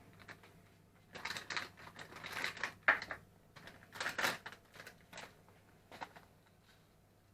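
Kitchen handling sounds as brown sugar is measured out: a few short rustles and scrapes at irregular intervals, with a sharp knock about three seconds in, over a faint steady low hum.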